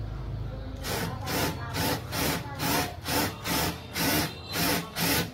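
12V cordless drill-driver running in short repeated bursts, about two a second, its bit working into a metal strip.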